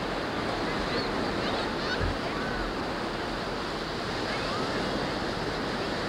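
Steady rushing of ocean surf, with a few faint, distant voices over it.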